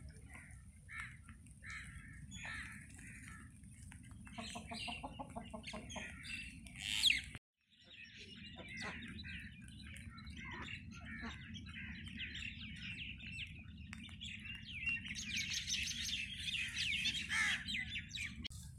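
Chickens calling and clucking in the first half. After a break, many small birds chirp densely over a steady low background noise, busiest near the end.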